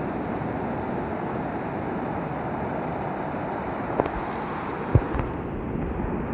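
Sea surf washing steadily on the shore, with wind noise on the microphone. Two brief knocks about four and five seconds in.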